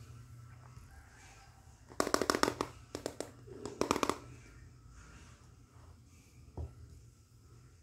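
Hard plastic toy cookware clicking and rattling as it is handled: a quick run of clicks about two seconds in, then two shorter clusters over the next two seconds.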